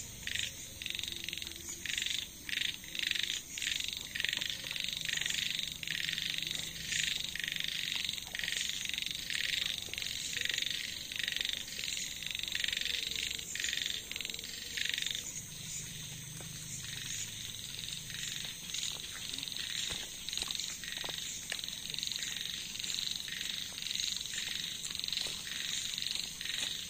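Frogs calling: short calls repeated two or three times a second for about fifteen seconds, then fewer and fainter, over a steady high hiss.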